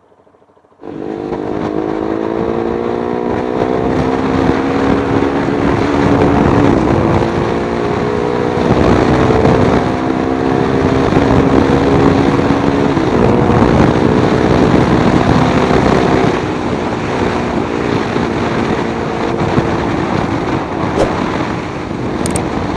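Motorcycle fitted with an Akrapovic aftermarket muffler running while being ridden, its engine note slowly climbing in pitch and dropping back a few times, over a steady rush of road and wind noise. The sound starts suddenly about a second in.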